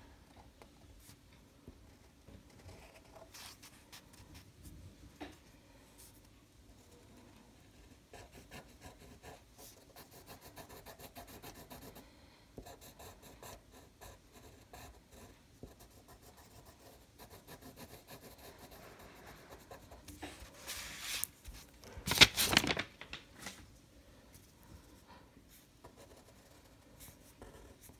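Black felt-tip pen scratching on paper in short strokes as lines are drawn. About three quarters of the way through come two louder rubbing bursts.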